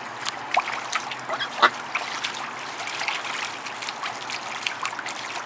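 Water splashing and dripping in a shallow plastic paddling pool as a white Pekin duck bathes, with a run of quick sharp splashes and faint peeps from ducklings.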